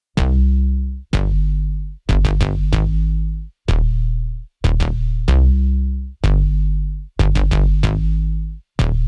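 Music with a heavy bass beat: deep bass notes struck about once a second, each stopping short before the next.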